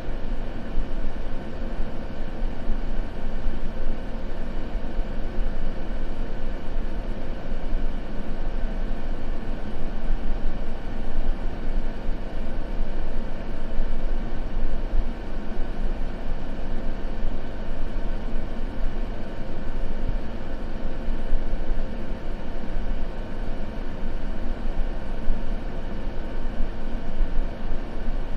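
Continuous sleep-ambience noise: an even, unbroken hiss weighted toward the low end so that it rumbles, with no crackles or changes.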